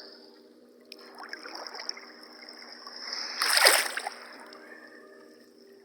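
Sea water splashing and sloshing around a swimmer in cold sea water, with one louder splash about three and a half seconds in.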